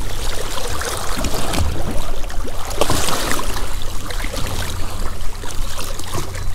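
Water splashing and sloshing as a freshly gaffed mahi-mahi is held in the sea at the side of a boat, with irregular bursts of spray. A steady low hum runs underneath.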